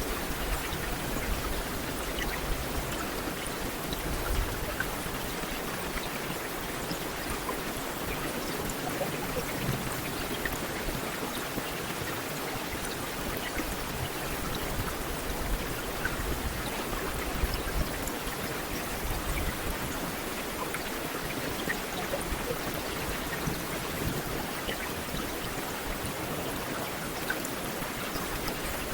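Steady rainfall, a continuous hiss dotted with many small drop ticks.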